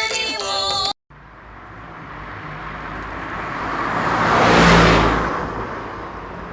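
A vehicle passing by: a smooth rush of engine and road noise that swells to its loudest about four to five seconds in and then fades. Before it, a sung nursery-rhyme tune cuts off abruptly about a second in.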